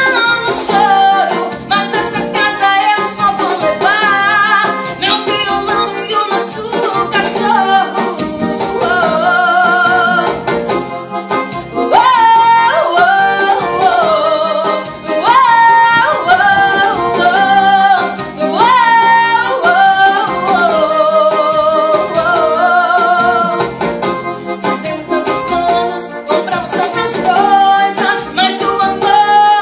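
A woman singing a ballad-style melody, with wavering vibrato on the long held notes, accompanied by a Yamaha electronic keyboard.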